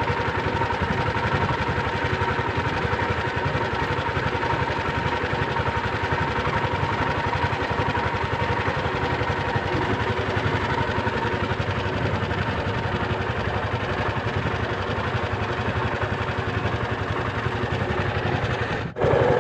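Small wooden fishing boat's engine running steadily while trolling, with a constant hum, cut off for an instant near the end.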